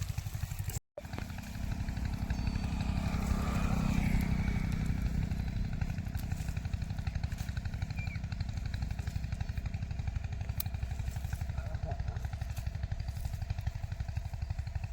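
An engine running steadily with a fast, even low throb, swelling a little about four seconds in.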